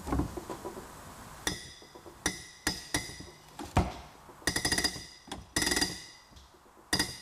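Rebuilt Bosch mechanical diesel injector from a 12-valve Cummins popping on a hand-lever pop tester. It gives a series of sharp, ringing metallic pops, with two longer rapid chattering runs near the middle as the nozzle opens and sprays. This is the sign of a good injector: a clean spray pattern with no dribbling and no leak-down.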